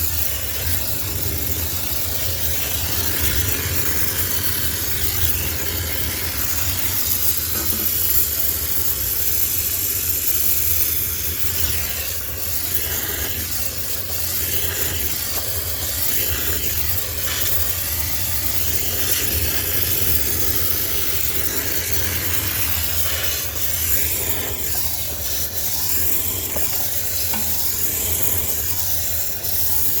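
High-pressure steam cleaner jetting steam to sterilise a sneaker washing machine: a steady hiss with a low hum underneath.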